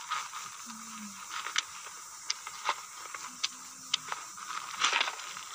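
Hand pruning shears working among a young apple tree's twigs: a handful of short, sharp clicks, with a brief rustle of branches about five seconds in. Faint voices murmur underneath.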